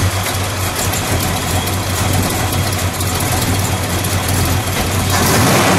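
A 1968 Plymouth GTX's 426 Hemi V8 idles steadily just after being started, a little louder near the end.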